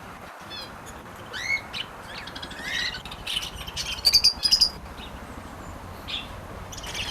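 Several small aviary birds chirping and calling in short, sharp notes, with a loud run of squawking calls about four seconds in.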